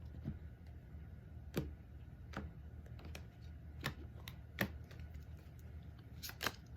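Oracle cards being handled and laid out on a table: light card clicks and snaps, about one a second, with a quick cluster near the end.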